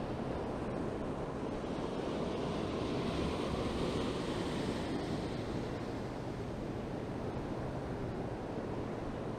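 Small ocean waves breaking and washing up the sand at the shoreline, with wind on the microphone. One wave swells loudest about three to five seconds in.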